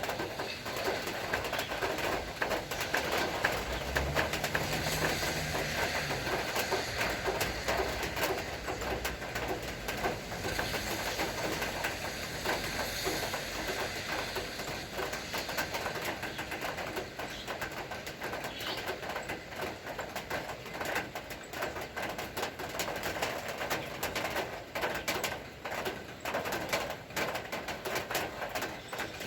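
Steady rain falling, with many fine drop ticks, and birds calling. A low hum rises a few seconds in and fades out a few seconds later.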